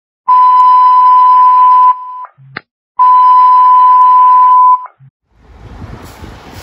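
Two long, steady, same-pitched electronic alert tones, each about a second and a half, with a click between them, like a fire dispatch radio alert. About five seconds in, the low rumble of a fire engine running outdoors fades in.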